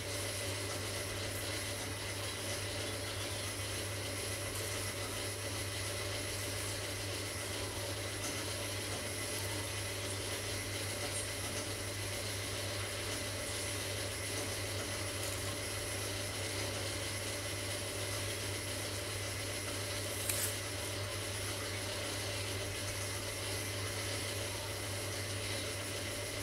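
Steady low hum with a hiss over it, unchanging, and a single short click about twenty seconds in.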